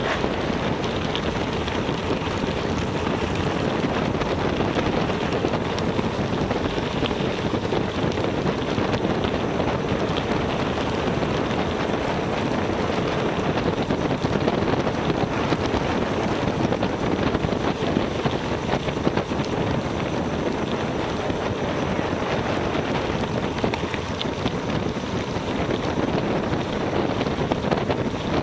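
Steady wind rushing over the microphone of a camera carried on a moving gravel bike.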